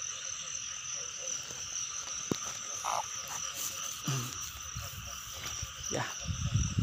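Frogs calling in a chorus at night, with a steady high trill running above them. A few short knocks and, near the end, low rumbling of the camera being handled.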